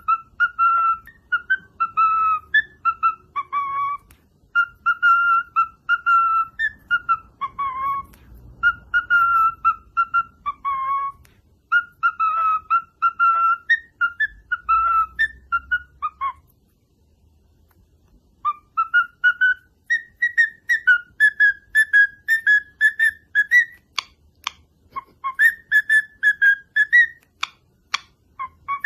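Clear whistled notes repeated in short phrases, many ending with a downward slide. After a pause of about two seconds midway, the whistling resumes slightly higher, with a few sharp clicks near the end.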